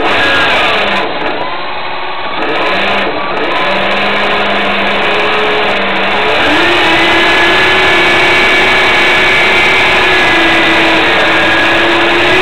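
Boat motor running hard and steadily, its pitch stepping up to higher revs about six seconds in.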